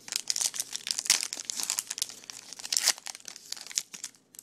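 A trading-card pack's foil wrapper being torn open and crinkled by hand, a dense run of rapid crackles with a brief pause near the end.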